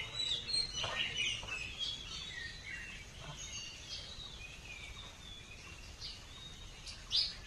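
Several birds chirping and calling at once: many short tweets and quick rising and falling notes, with one louder burst of chirps near the end, over a low background rumble.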